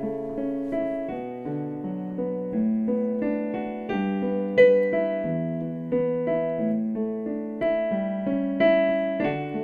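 Slow, gentle piano music: chords and single notes struck about once or twice a second, each fading away before the next.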